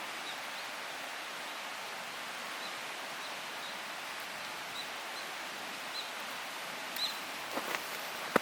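Open wood fire burning with a steady hiss, and a few sharp crackles and pops near the end.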